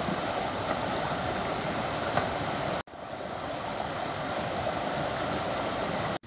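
Muddy floodwater rushing over stones and gravel in a dirt street, a steady rush of water. It cuts off abruptly about three seconds in, and a slightly softer, steady water rush follows.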